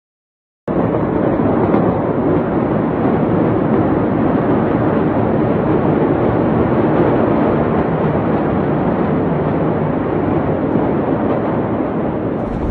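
A loud, steady rumbling roar that starts suddenly about half a second in and holds without a separate bang. The top end is dull, as from a phone recording.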